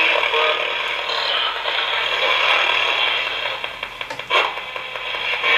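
Ghost box sweeping through radio frequencies: a steady hiss of radio static, choppy and flickering, with a short sharp click about four seconds in.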